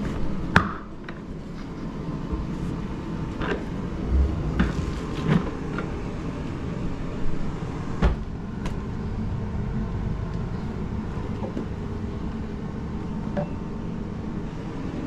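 Scattered clicks and knocks of plastic parts being handled on a Milwaukee M18 Fuel wet/dry vacuum as its top is opened and fitted, the sharpest about half a second in, over a steady low rumble.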